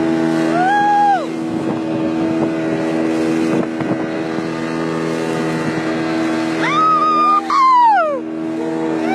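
Speedboat engine running steadily, with wind noise. Two long pitched calls ride over it, each rising, holding and falling away: a short one about a second in and a longer one around seven seconds in.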